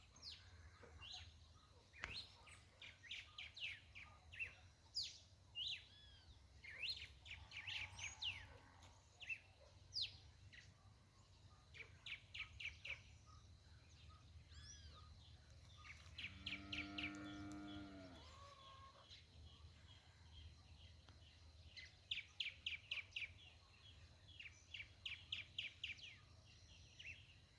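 Several birds chirping and trilling in quick repeated series throughout. About two-thirds of the way in comes one drawn-out, lower call lasting about two seconds.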